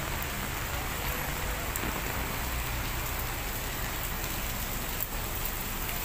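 Steady rain falling on wet ground, an even hiss of drops.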